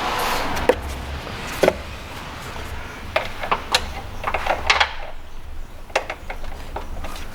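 Scattered light clicks and knocks of metal hand tools being handled: a wrench and hex bit being tried on an alternator pulley's overrunning clutch. The clicks bunch together in the middle of the stretch.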